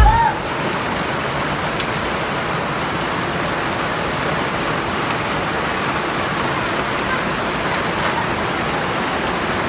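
Rain falling steadily: a constant even hiss of rain on hard surfaces.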